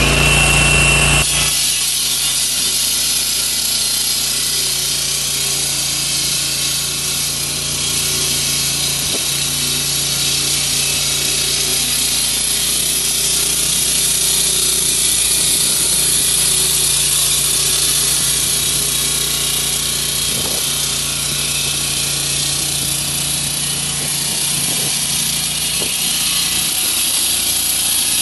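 Hycon HCS 20 hydraulic handsaw with a 500 mm diamond blade cutting into concrete and asphalt. A high steady whine at first gives way about a second in to an even, steady grinding hiss as the blade bites in, over a low hum that runs throughout.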